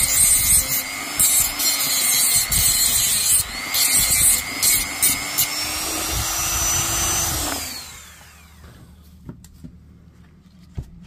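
Corded rotary tool running and grinding in bursts, with a high motor whine; about seven and a half seconds in it is switched off and winds down, its pitch falling away.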